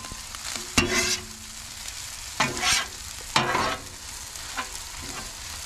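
Scrambled eggs and spinach sizzling on a Blackstone flat-top griddle while a metal spatula scrapes and turns them across the griddle top, several quick strokes over a steady sizzle.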